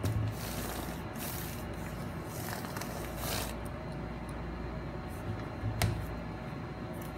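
Hands rubbing and sliding over an aluminium MacBook Pro laptop, with a sharp click and a low thump about six seconds in as the lid is shut, over a steady low room hum.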